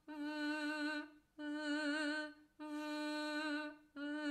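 A woman's voice singing four held notes on one pitch, each about a second long with slight vibrato and a faint hiss over it. These are voiced fricative consonants, V and the voiced TH, sustained on pitch as a singing exercise.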